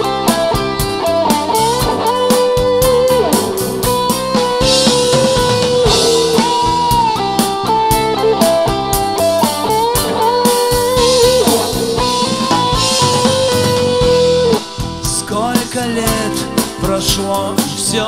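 A song playing: a sung melody of long held notes over a backing of guitar and drums. It gets a little quieter about three quarters of the way through.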